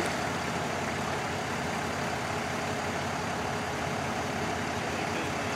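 A motor vehicle's engine running steadily, with no change in pitch or level.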